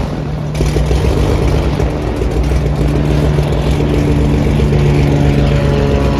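Twin-engine piston airplane taking off, its engines running steadily at full power with a low drone.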